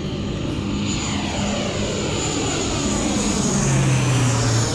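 A twin-engine turboprop military transport plane passes low overhead while descending. Its engine and propeller drone grows louder toward the end. The pitch sweeps downward as it goes over.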